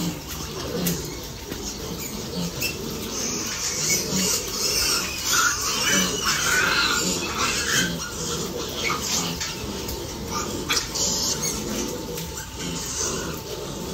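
A crowd of piglets grunting and squealing together in a pen, the squealing busiest in the middle of the stretch.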